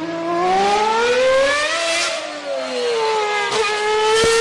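A car engine revving: the pitch climbs over the first two seconds, sinks back until about three and a half seconds in, then climbs again. A sharp click comes about four seconds in.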